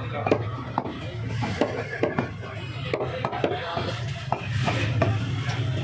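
Irregular sharp knocks of a butcher's blade striking a wooden chopping block, about two a second, while meat is cut up. A steady low hum runs underneath.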